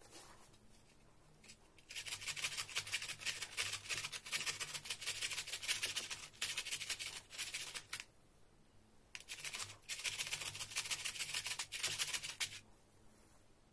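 Carrot rasped rapidly back and forth across a flat stainless-steel hand grater, a quick run of scraping strokes. It starts about two seconds in, breaks off for about a second past the middle, then goes on until shortly before the end.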